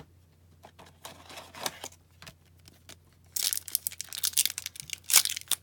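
A foil trading-card pack wrapper being torn open and crinkled by hand, a loud crackle that starts about three seconds in. Before that come faint rustles and clicks as the pack is drawn from its box.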